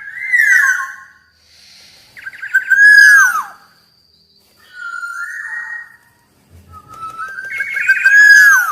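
Black-naped oriole singing: four loud, fluty whistled phrases about a second apart, several ending in a downward slur.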